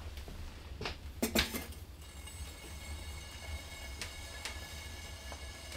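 Small metal camping mug set down on a steel wood-stove top, clinking twice about a second in. A low steady rumble runs underneath. From about two seconds in there are faint steady high tones and a few sharp ticks.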